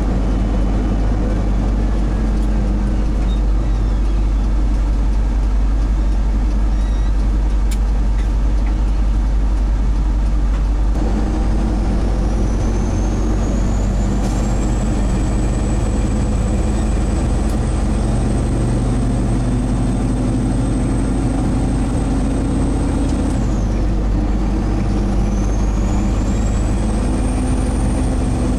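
Semi truck's diesel engine and road noise heard from inside the cab while driving on the highway: a steady low drone. A high whine climbs partway through, holds, falls off suddenly and climbs again near the end.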